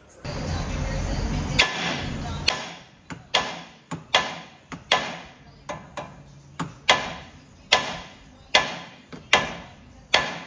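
A couple of seconds of steady, rushing tool noise, then a hammer striking repeatedly, about two blows a second, each blow sharp and dying away quickly, as suspension parts are knocked loose.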